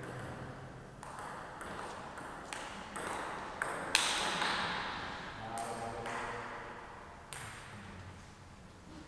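Table tennis ball being hit in a rally: about eight sharp clicks of the celluloid ball on the rubber bats and the table, at uneven spacing, each with a short echo.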